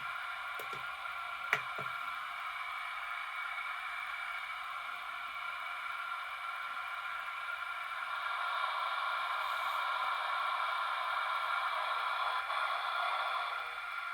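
DCC sound decoder in a model AD60 Garratt steam locomotive playing a steady steam hiss through its small onboard speaker, growing louder about eight seconds in and easing off near the end. A sharp click about a second and a half in.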